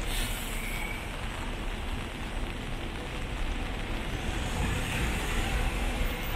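Steady hiss of rain and car tyres on a wet road, with a low rumble of passing traffic.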